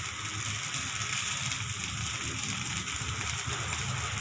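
Millet dosa batter sizzling on a hot griddle: a steady hiss as the dosa crisps.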